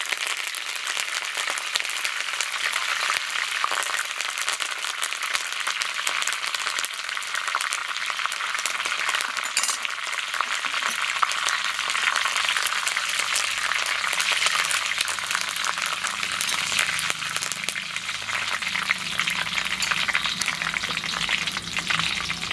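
Curry leaves and dried red chillies sizzling and crackling in very hot sesame oil in an iron kadai, the stove already switched off, with a steady spatter of tiny pops. A faint low hum joins in later.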